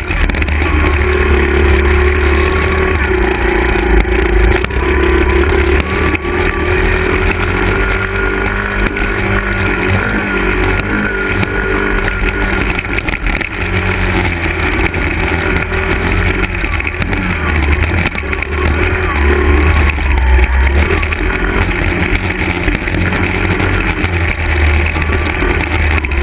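Small 50cc Honda dirt bike engine, an air-cooled four-stroke single, running continuously on a trail ride. Its pitch wavers up and down as the throttle changes, over a strong low rumble.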